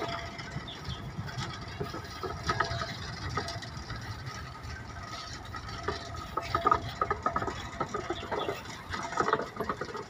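A small 762 mm narrow-gauge sugar-railway diesel locomotive moving slowly along the track, its engine a low steady rumble, with bursts of metallic clicking and rattling, the loudest about two-thirds of the way through.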